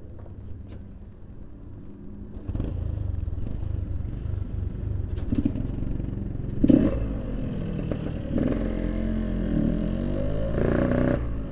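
Yamaha RX-King 135cc two-stroke single-cylinder motorcycle engine running, getting louder about two and a half seconds in, with its revs rising and falling through the rest.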